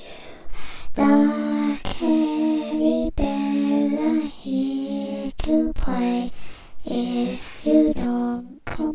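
Music: a slow melody in long held notes, with a few sharp clicks between some of them.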